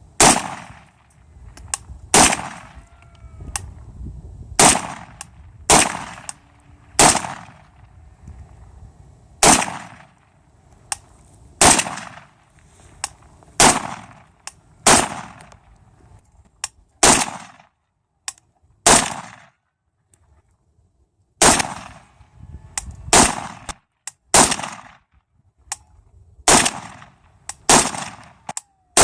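Century Arms C39 AK-47 rifle in 7.62x39 fired in single shots, one at a time, about every one to two seconds, each crack followed by a short echo.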